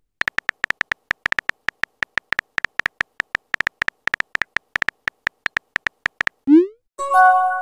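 Texting-app keyboard sound effects: quick electronic key-tap clicks, several a second, each with a short high tone, stopping about six seconds in. Then a short rising swoop as the message is sent, and a chime of several notes near the end.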